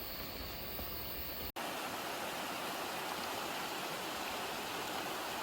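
Rushing water of a mountain stream, a steady wash of noise. An abrupt cut about a second and a half in changes it to a louder, brighter rush, losing the low rumble that lay under it before.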